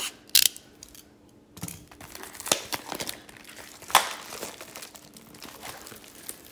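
Plastic shrink wrap crinkling and tearing as it is pulled off a sealed hobby box of trading cards: a run of sharp crackles with loud snaps about half a second, two and a half and four seconds in.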